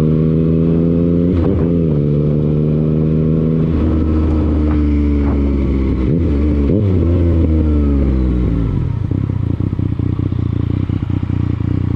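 Motorcycle engine running at a fairly steady speed, its pitch wavering a little, then after about eight and a half seconds dropping to a low, rough, pulsing idle.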